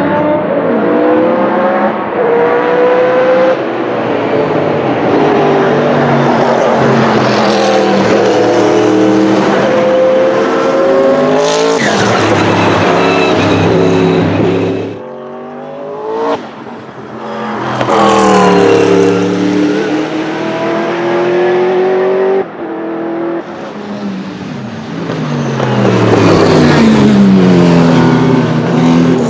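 Sauber-Mercedes C11's 5.0-litre twin-turbo V8 racing engine on track at high revs, pitch climbing through the gears and dropping at shifts and as the car passes. There is a brief quieter spell about halfway through, and the loudest run comes near the end.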